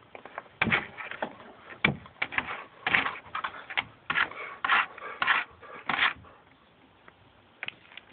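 A dog's nose and paw scuffing against wooden deck boards as it noses and paws at a grasshopper: a string of short scratchy rubs and taps, most of them between about half a second and six seconds in.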